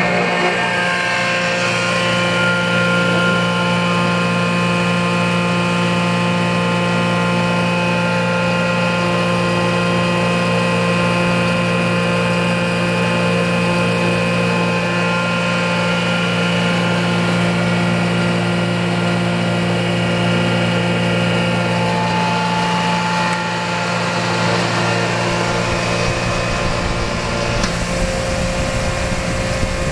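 Sullivan Palatek 20 hp rotary screw air compressor, driven by a three-phase electric motor, starting up and running steadily under load as it pumps up its tank. It is a loud, even drone made of several steady tones. The level dips slightly about 23 seconds in.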